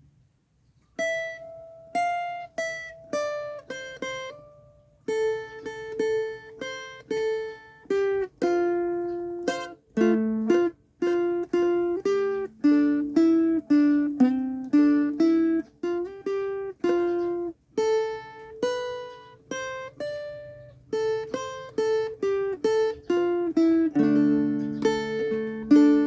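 A plucked string instrument played note by note, a simple single-line melody of separately plucked notes, each ringing and fading before the next, starting about a second in.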